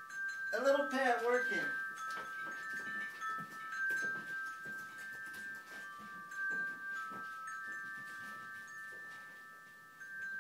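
A baby gives a short babble, then taps and slaps at the keys of an Apple computer keyboard, making faint scattered clicks. Several steady, high chime-like tones ring throughout and shift in pitch now and then.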